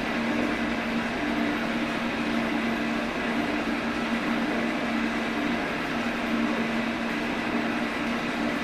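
G&E metal shaper running, its ram stroking a radius tool across aluminum bar stock. A steady mechanical hum with a tone that comes and goes.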